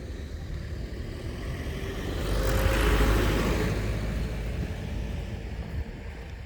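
A car driving past, its engine and tyre noise building to the loudest point about three seconds in and then fading away, over a steady low rumble.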